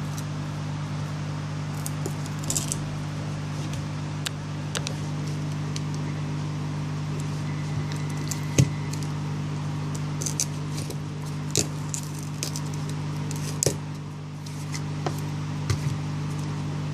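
Scattered small sharp clicks and scrapes as a plastic pick and fingers pick cracked glass crumbs off an LG Nexus 5's display frame. A steady low electrical hum runs underneath and stops suddenly near the end.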